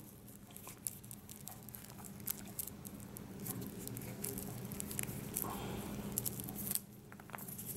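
Soft rustling and light irregular ticking of a thin coiled lavalier microphone cable being pulled apart and handled between the fingers.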